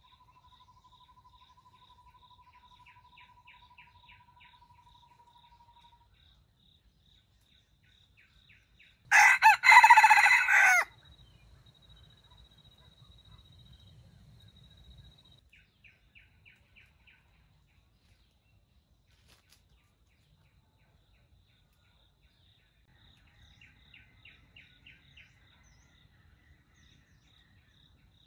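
A junglefowl rooster crows once, a loud call of just under two seconds broken into several parts, about nine seconds in. Underneath are faint steady insect calls and a few short chirping trills.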